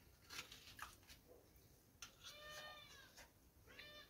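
A few soft scraping clicks of a utensil working at bel (wood apple) fruit, then a faint animal call heard twice: a pitched call of about a second, and a shorter one near the end.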